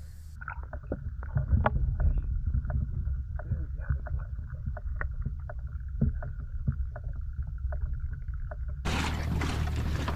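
Muffled underwater sound from a microphone held below the surface: a low rumble with many small bubbling clicks, and all the high end gone. Near the end the open-air sound cuts back in with a loud rush of splashing water as the microphone comes out.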